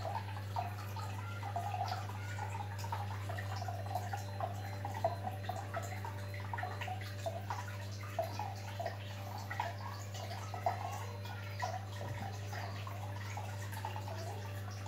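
Aquarium water trickling and bubbling in many small irregular plops, over a steady low hum.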